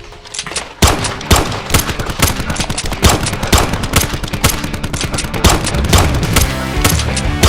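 Rapid, irregular gunfire sound effects, a few shots a second, starting about a second in, over a low steady musical backing.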